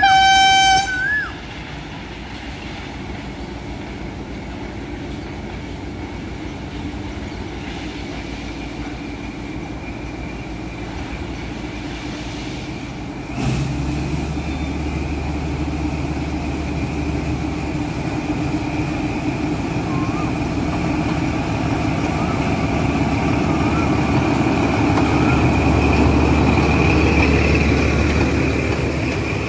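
Sri Lanka Railways diesel locomotive hauling a ballast train, its engine running as it approaches. About 13 seconds in the engine suddenly gets deeper and louder as it works harder, and it stays loud as it passes close near the end. A short high toot sounds at the very start.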